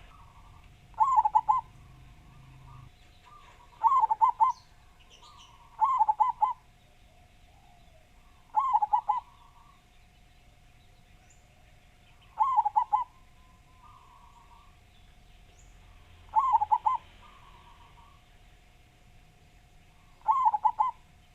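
Zebra dove (local Javanese perkutut) cooing: seven short trilled coo phrases at uneven gaps of two to four seconds, several trailed by a softer note.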